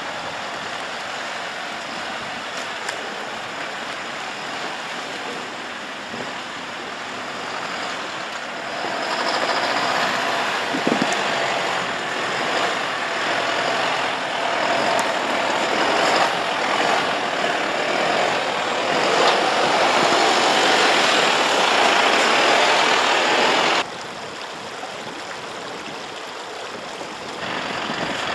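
Mercedes-Benz Unimog U 4023 truck's four-cylinder diesel engine running as it drives slowly over snow-covered rocks. The sound grows louder about a third of the way in and drops off abruptly near the end.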